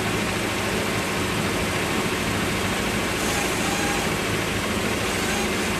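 Motorboat engine running steadily under way, with an even rush of wind and water over it.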